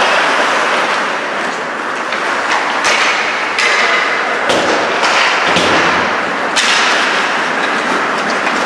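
Ice hockey play: a steady scrape of skate blades on the ice, with three sharp knocks of stick, puck or body against the boards, two close together near the middle and one later.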